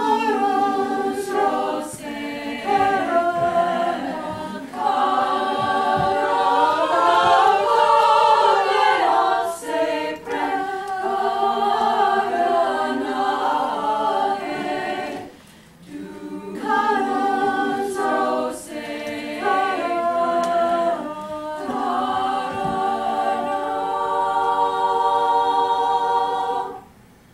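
Women's choir singing a cappella in several parts, in phrases with short pauses between them, ending on a long held chord that cuts off near the end.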